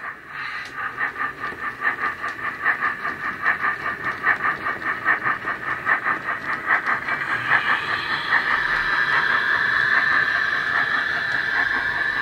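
Steam exhaust chuffs from a Bachmann 3F model locomotive's Wheeltappers DCC sound decoder, played through a bass-enhanced speaker in the tender: a rapid, even beat as the engine runs. About two-thirds of the way through the chuffs fade into a steady hiss.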